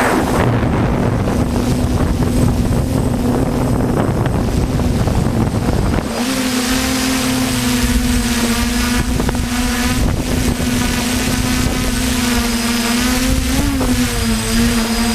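DJI F450 quadcopter's motors and propellers humming steadily in flight, with wind buffeting the microphone. The wind rumble is heaviest in the first six seconds; after that the hum comes through more clearly, and its pitch rises briefly near the end.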